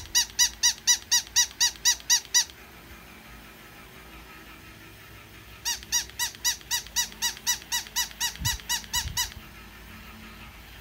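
A spotted plush toy squeaking rapidly and evenly, about four or five high squeaks a second. One run stops about two and a half seconds in, and another runs from about six to nine seconds in, with a couple of soft thumps near its end.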